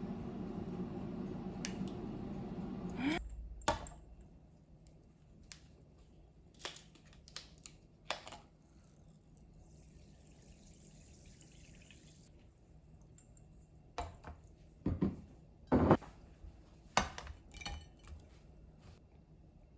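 Kitchen food-prep sounds: a steady running hum for about the first three seconds cuts off with a short rising sweep, then scattered clicks, taps and clinks of dishes and utensils being handled.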